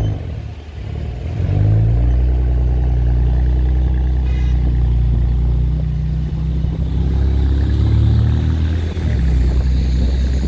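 Road traffic: a nearby motor vehicle's engine running with a loud, low, steady drone that swells about a second and a half in and again near eight seconds.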